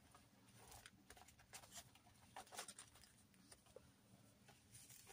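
Faint rustling and soft ticks of paper journal pages being handled and turned.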